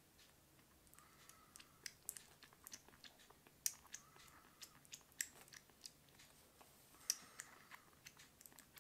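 Newborn kitten suckling milk from a nursing bottle: faint, irregular wet clicks and smacks of its mouth working the nipple, several a second, with a few sharper ones standing out.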